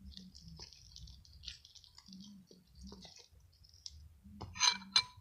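Fluffy soap-and-toothpaste slime being squeezed and worked by hand, making soft wet crackling and clicking squishes, with a louder squelchy burst near the end.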